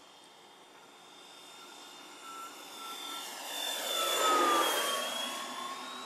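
Electric ducted fans (Schübeler 120 mm) of a large RC Airbus A350 scale model on a low fly-by: a whine over a rush of air that grows louder, peaks about four seconds in, then drops in pitch as the model passes and moves away.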